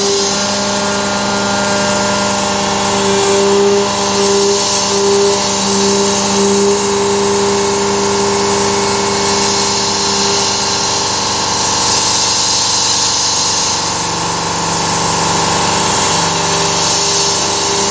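Carvera Air desktop CNC mill running a milling pass: a steady spindle whine made of several held tones, over the even hiss of the air assist blowing chips clear.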